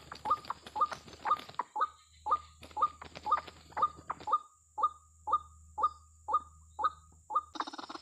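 White-breasted waterhen calls: a short, falling note repeated evenly about twice a second, some fifteen times. Just before the end the calls stop and a louder, rougher sound cuts in.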